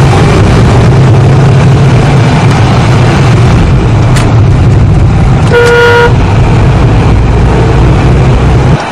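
Loud, steady engine and road rumble inside a moving car, with one short car-horn honk of about half a second a little past the middle. The rumble cuts off suddenly just before the end.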